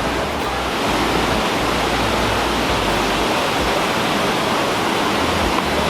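Waterfall: a steady rush of falling water, with a low rumble underneath.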